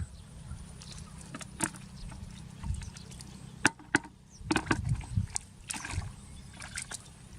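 Scattered sharp knocks and splashes in water, about half a dozen spread through, over a steady low rumble.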